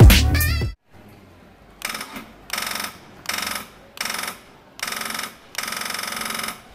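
A motorcycle's electric starter cranks the engine in six short bursts, the last one longer, without the engine catching: the bike won't start. Background music cuts off just before the cranking.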